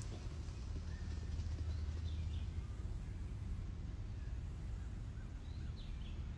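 Outdoor ambience: a steady low rumble with a few faint, short bird chirps scattered through it.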